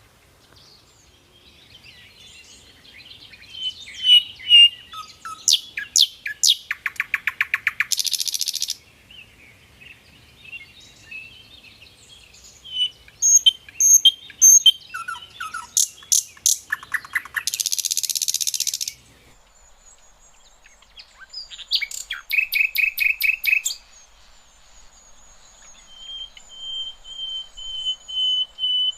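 Sikatan londo flycatcher singing: bursts of high chirps, twittering and fast rattling trills with short pauses between them, then one long, even high note near the end.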